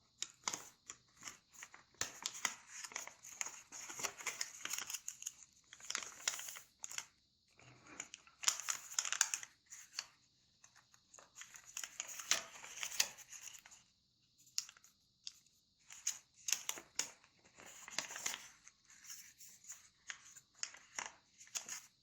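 Sheet of origami paper being handled and folded by hand: irregular rustling and crinkling, with sharp creasing crackles as folds are pressed and corners opened and tucked.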